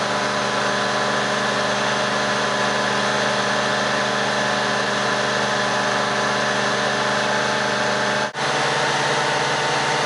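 Cadillac Northstar V8 with a blown head gasket idling steadily. There is a brief break about eight seconds in, after which the idle tone changes slightly.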